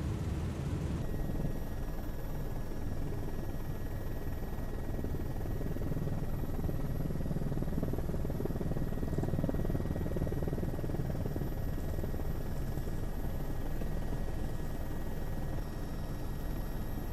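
Helicopter flying: a steady low rotor chop under a faint turbine whine.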